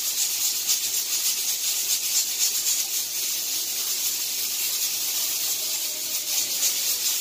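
Steady background hiss with a fast, even flutter in the high range, and a faint brief tone around five and a half seconds in.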